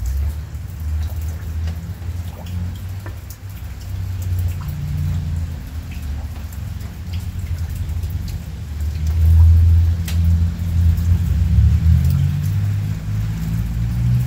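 Heavy rain falling, with individual drops ticking sharply close by over a steady hiss and a low, uneven rumble that swells about two-thirds of the way through.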